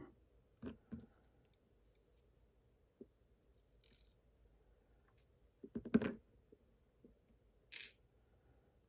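Faint, scattered clicks and taps of small metal lock parts and tools being handled while a pin-tumbler lock is taken apart. The loudest cluster of clicks comes about six seconds in, with two brief, soft scrapes around four and eight seconds in.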